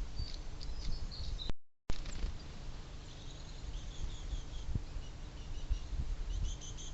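Small birds chirping, with short high calls scattered throughout and a cluster near the end, over a low outdoor rumble with a few soft low thumps. The sound drops out completely for a moment about a second and a half in.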